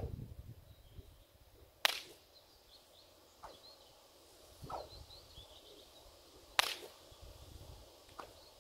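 Two sharp cracks of a 9-foot leather bullwhip, almost five seconds apart, from light, low-effort throws that test how easily the newly finished whip cracks. Birds chirp faintly between the cracks.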